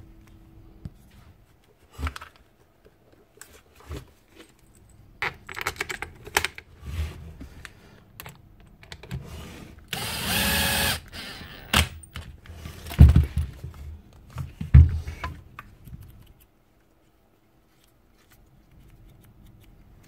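Cordless 18-volt driver running for about a second as it backs a screw out of the end cap of a router's motor housing, among light clicks of handled tool parts. Two heavier thumps follow a few seconds later.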